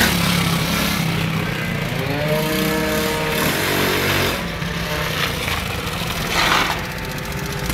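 Small quad bike (ATV) engine running, its pitch rising as it revs for about a second, about two seconds in.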